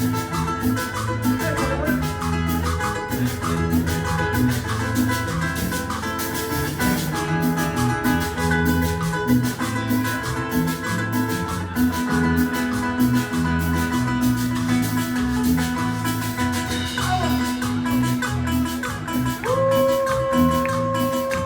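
Music with a steady beat and repeated bright, short notes over a bass line; a long held note comes in near the end.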